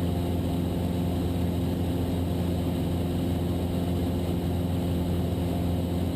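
Steady drone of a Cessna 172's piston engine and propeller in flight, holding an even pitch.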